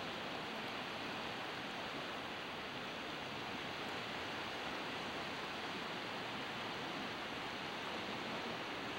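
Steady rushing noise of distant sea surf on a stony shore, even throughout with no separate events.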